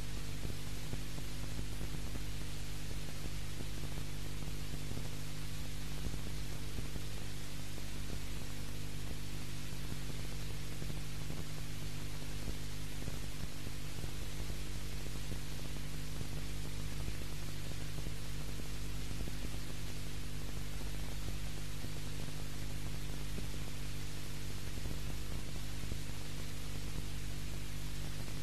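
Steady hiss with a low electrical hum and nothing else: noise of an old recording whose soundtrack is otherwise empty.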